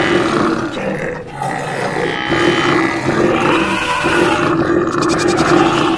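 A dense mix of animal sound effects, roars and growls layered over a continuous din of many animals, with a fast ticking rattle about five seconds in.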